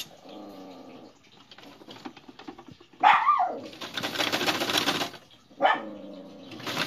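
A dog barks about three seconds in as an electric sewing machine runs a short burst of stitching for about two seconds; the dog barks once more near the end, and the machine starts stitching again right at the close.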